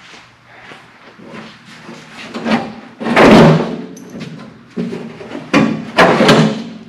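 Sheet-metal hood and attached fuel tank of a 1948 Silver King tractor clunking, scraping and rattling as they are wrestled loose by hand. There is a loud bang about three seconds in and two more near the end.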